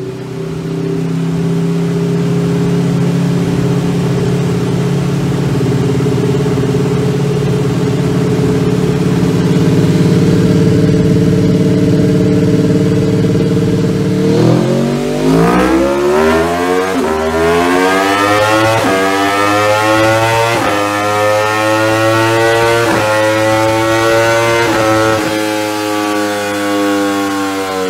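Aprilia RSV4 V4 engine through an Akrapovic exhaust running on a motorcycle dynamometer. It holds steady revs for about fourteen seconds, then goes into a full-throttle power run, its pitch climbing steeply and then levelling off at high revs.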